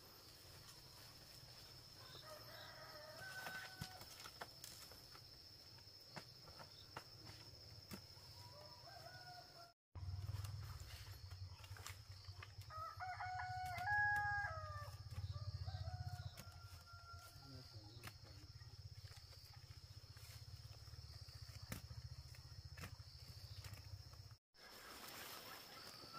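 Rooster crowing: one crow about three seconds in and a louder one about halfway through, over a steady high-pitched tone and a low hum. The sound drops out briefly twice.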